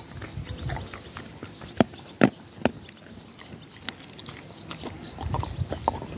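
Dog gnawing a bone, with sharp cracks as its teeth crunch on it, three loud ones about two seconds in, and softer chewing and mouthing near the end.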